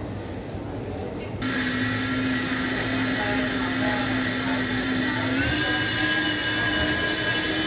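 Steady high turbine whine from a jet airliner being pushed back, over a low hum, starting suddenly about a second and a half in. About five and a half seconds in, the whine steps up in pitch and holds. Before the whine, a short stretch of dull rumble.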